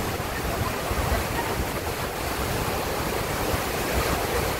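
Large waterfall pouring into its plunge pool: a steady, loud rush of falling water, with wind buffeting the microphone in the low end.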